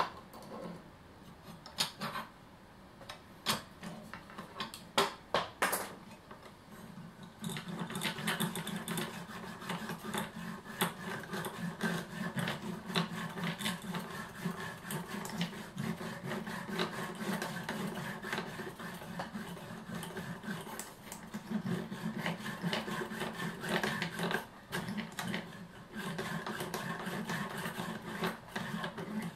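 A few clicks and knocks of handling, then a junior hacksaw sawing fast and steadily through the aluminium can of an old multi-section electrolytic capacitor, with a couple of brief breaks in the strokes.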